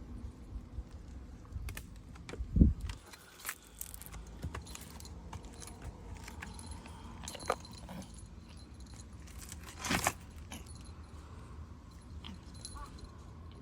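Scattered light metallic jingling and clicks, with a low thump about two and a half seconds in and a louder clatter around ten seconds in.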